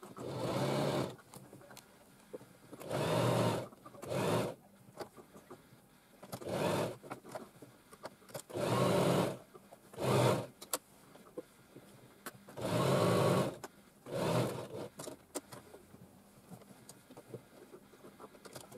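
Household electric sewing machine zigzag-stitching stretch fabric to mesh. It runs in short bursts of about a second, stopping and starting again about eight times.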